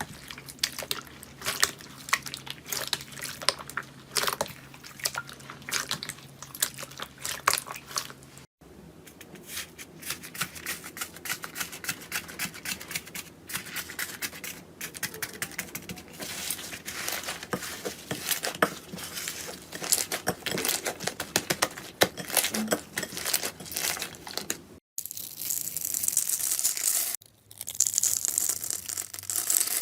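Slime being squeezed and pulled by hand, giving a dense, irregular run of small crackles and pops. It breaks off abruptly twice, and the last stretch is a steadier hissing, tearing noise.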